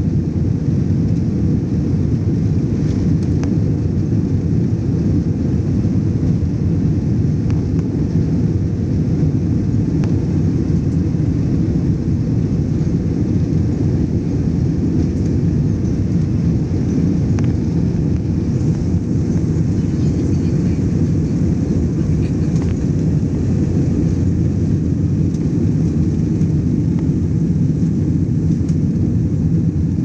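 Jet airliner during its takeoff run and climb-out, heard inside the cabin: the engines at takeoff power and the runway rumble make a steady, loud, deep rumble with little high sound.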